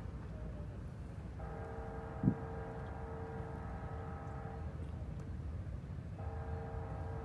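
Train horn sounding long chord blasts: one of about three seconds, then another starting near the end. A steady low rumble runs underneath, with one short thump a couple of seconds in.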